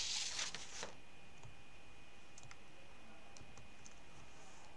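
Faint rustling in the first second, then a few light, sparse clicks of a computer mouse, over a faint steady high-pitched whine.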